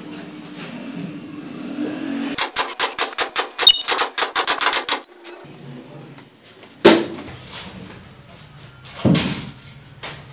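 A pneumatic nail gun fired in fast succession, about a dozen sharp shots in roughly two and a half seconds. Two single thumps follow later.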